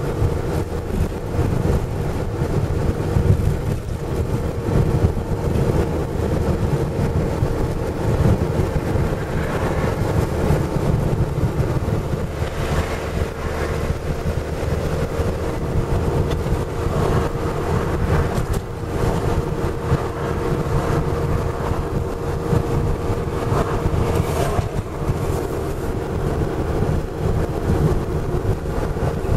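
Steady low rumble of a car's engine and tyres heard from inside the cabin while driving, with a faint steady hum and a few brief louder hisses.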